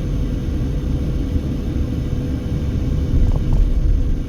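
Car driving at steady speed, its road and engine rumble heard from inside the cabin, with a faint steady hum over it.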